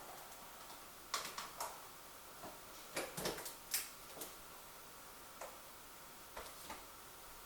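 Scattered light clicks and taps over quiet room tone: a cluster about a second in, a louder cluster about three seconds in, and a few softer ones later.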